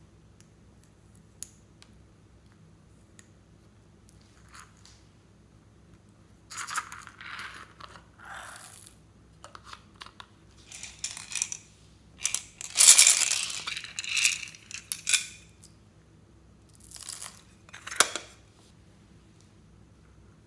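Small plastic cosmetic containers being handled and opened: irregular bursts of plastic crinkling, tearing and clicking, starting about six seconds in and loudest about two-thirds of the way through.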